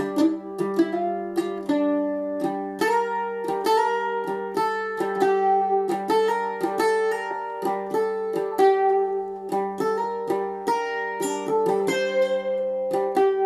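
Solo bandolim (Brazilian mandolin) playing a melody in fast, densely picked notes. A low note near the instrument's bottom G hums steadily underneath.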